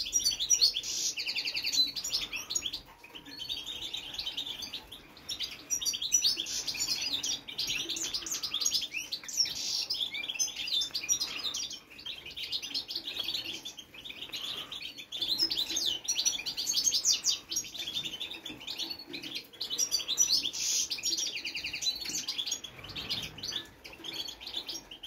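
Caged finches singing: fast, twittering song phrases a few seconds long, broken by short pauses.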